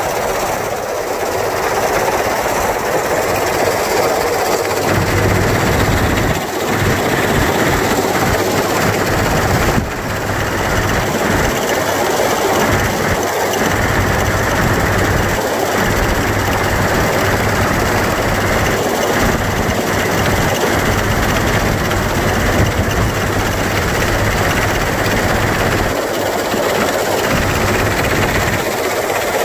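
Lippmann-Milwaukee 4800R crushing and screening plant running while shell rock is fed through it: a loud, steady mix of engine hum and the rattle of the vibrating feeder and rock. A low steady hum comes in about five seconds in.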